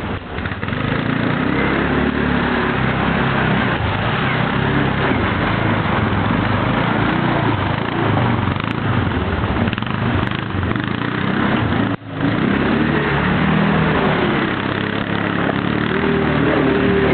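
Kymco MXU 500 ATV's single-cylinder engine running, its pitch rising and falling with the throttle. The sound drops out briefly about twelve seconds in.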